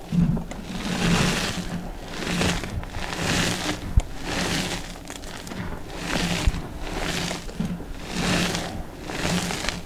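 Handfuls of crumbled, dyed gym chalk powder squeezed and crushed in the hands: soft, dusty crunches coming about once a second, with two sharp clicks partway through.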